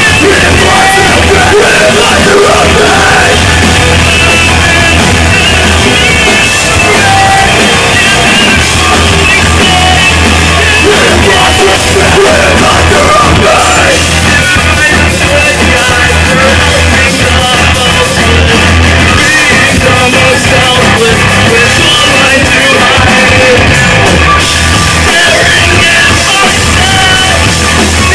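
Post-hardcore band playing live, loud: electric guitars, bass and drums with yelled vocals.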